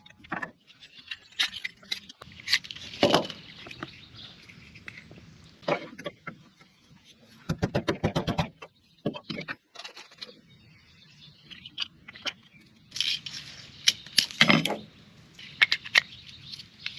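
Hands working the plastic parts of an Echo Speed-Feed 400 string-trimmer head: scattered clicks, knocks and scrapes, with a quick run of even clicks about halfway through.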